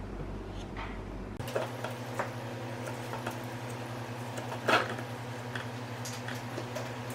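Steady low electrical hum that shifts to a different pitch about a second and a half in, with scattered light clicks and taps and one sharper click about five seconds in.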